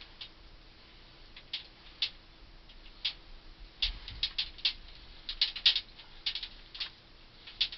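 Roofing tar being brushed onto copper ground-loop tubing: irregular sharp clicks and ticks, a few at first and coming faster after about four seconds, with a dull low bump around then.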